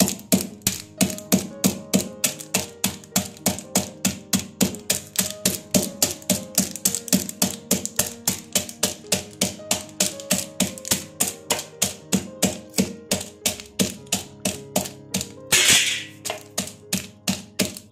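Steel mortar (khalbatta) knocking rapidly on almonds in a plastic bag on a stone counter, about four knocks a second, crushing the nuts into small pieces. A louder rustle near the end, and background music underneath.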